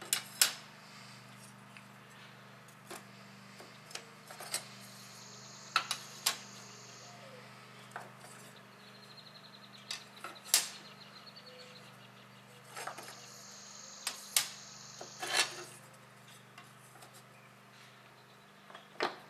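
Steel clutch plates and lined clutch discs from an Allis-Chalmers power director clutch clinking and clanking against each other and the cast housing as they are lifted off and set down. The sound comes as scattered sharp metal knocks, the loudest near the start and about ten seconds in.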